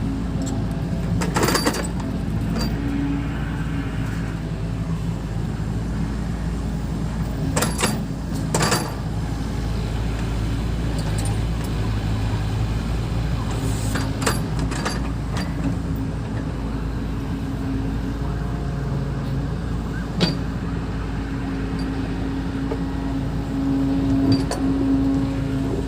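Bulldozer diesel engine running steadily, its tone swelling a little now and then, with a handful of sharp metallic knocks spread through.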